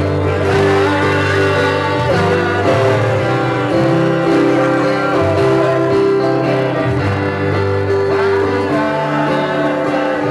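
Live acoustic band: several acoustic guitars strummed with men singing into microphones, a continuous song.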